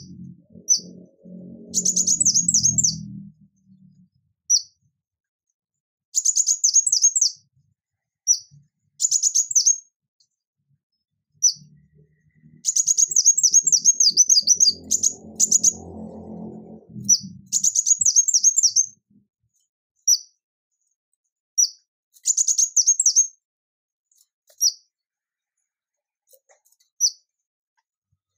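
Male ruby-cheeked sunbird singing: high, thin single notes alternating with quick trills of rapidly repeated notes, each trill about a second long, recurring every few seconds.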